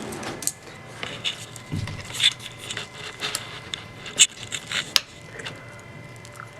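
Allen key unscrewing small screws from the steering part of a Xiaomi Mini self-balancing scooter: irregular small clicks and scrapes, with sharper clicks about two, four and five seconds in.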